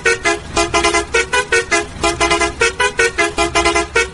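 Background music: a fast run of short, bright, horn-like notes, about six a second.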